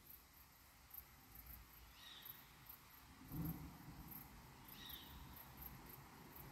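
Faint night sounds: a short, high-pitched animal call sounds twice, a couple of seconds apart, over a steady faint chirping of insects. A brief low thump about three and a half seconds in is the loudest sound.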